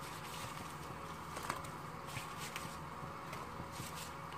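Thin yogurt curry simmering gently in a pot, a faint steady bubbling, with a few soft taps and plops as fried spinach pakoras are dropped into it one by one.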